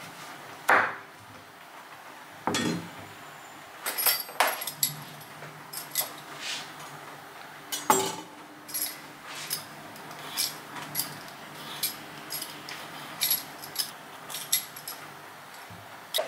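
A chef's knife cuts through a zucchini onto a wooden cutting board with a couple of knocks. Then a vegetable peeler scrapes the zucchini's skin off in many short, sharp strokes.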